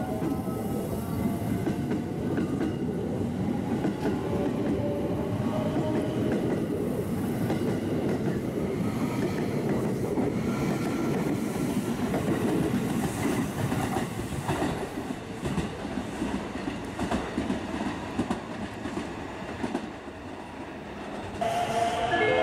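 281-series Haruka limited express electric train pulling out of the station: its motor whine rises as it speeds up, then the wheels clatter over the rail joints as the cars go by. The sound fades near the end.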